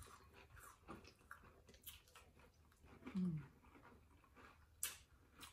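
Faint chewing of Cap'n Crunch cereal soaked in orange juice, with scattered wet mouth clicks and a brief hum about three seconds in.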